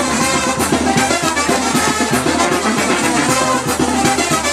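Loud Mexican dance music with brass and drums over a party sound system, an instrumental stretch between sung verses.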